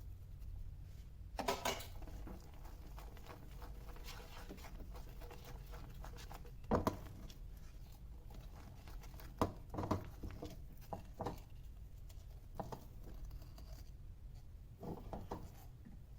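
Irregular light clicks, taps and short scrapes of kitchen handling over a low steady hum.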